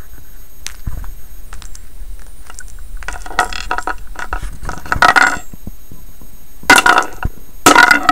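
Small plastic toy figures being handled, clicking and clinking against each other. There are a few faint clicks at first, then several loud clattery bursts in the second half.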